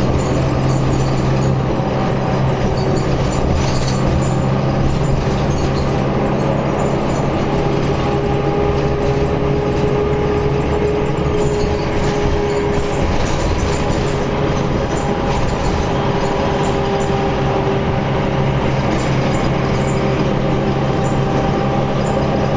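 Steady vehicle engine noise with a constant low hum. A higher steady tone comes in and out through the middle.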